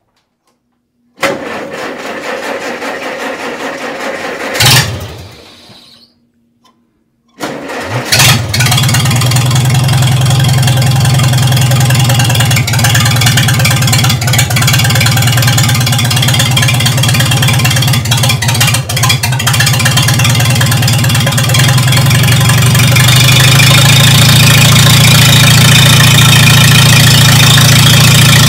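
Farmall Super C's four-cylinder gasoline engine being started. The first try cranks for about three seconds and ends in a sharp bang without running. The second try, about seven seconds in, catches and settles into a steady run, which grows a little louder near the end.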